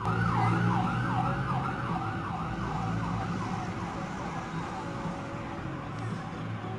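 A siren-like electronic wail yelping in quick falling sweeps, about three a second, fading out after about three and a half seconds, over a steady low engine hum.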